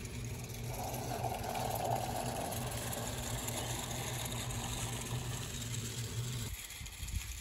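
Small live-steam garden-railway locomotive and its wagons rolling across a girder bridge: a steady low rumble with rattling from the wheels. The rumble stops suddenly about a second before the end, as the train leaves the bridge.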